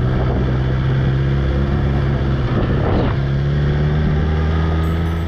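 Suzuki GSX-R1000 K7's inline-four engine running at a steady pitch while the motorcycle is ridden.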